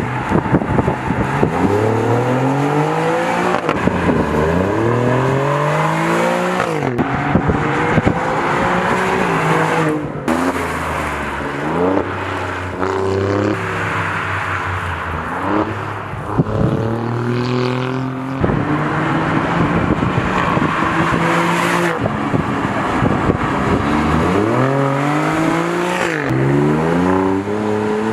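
Alfa Romeo Quadrifoglio's twin-turbo V6 and exhaust under hard acceleration on a track. The pitch climbs through the gears and drops sharply at each upshift, then falls away and builds again several times under braking and re-acceleration.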